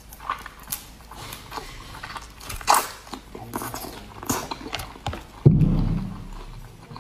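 Close-up eating sounds of a whole shell-on marinated shrimp being bitten, sucked and chewed: a run of crackly clicks and wet smacks, with one louder, deeper thump about five and a half seconds in.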